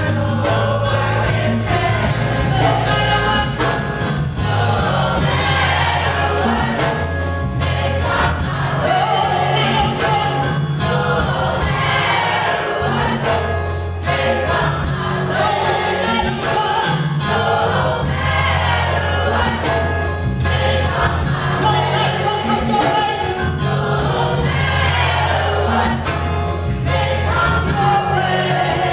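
Gospel choir singing, backed by keyboard and drums, with a heavy bass line and a steady beat.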